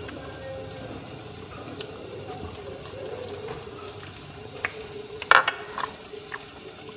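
Crunching of crisp deep-fried worms being chewed: a few scattered sharp cracks, the loudest a little past five seconds in, over a steady low hiss.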